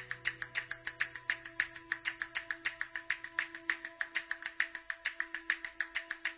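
Rapid, evenly spaced clicks, about seven a second, over faint held notes, as part of a music track; they start abruptly.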